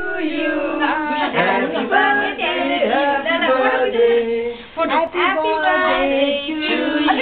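Several women's and children's voices overlapping, partly sung, with some notes held and others breaking off quickly like chatter.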